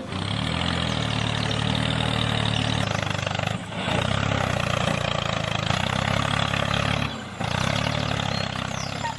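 An engine running steadily, with a low even throb and a hiss above it, cutting out briefly twice a few seconds apart.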